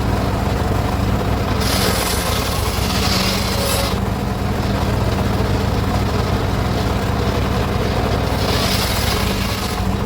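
Circular saw cutting teak wood. The saw runs steadily, and the hiss of the blade in the wood swells up three times as the timber is fed through.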